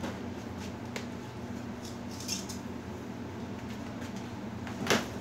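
Light handling clicks and a brief rustle over a steady low hum, with one sharper knock near the end.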